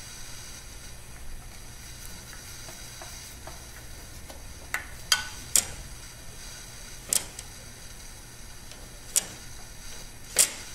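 Sharp mechanical clicks, about six spread over the last six seconds, from the switches of a Bridgeport 8F milling-machine power feed being tripped by hand, a check that the switch actuator is hitting the contacts. A steady hiss underneath.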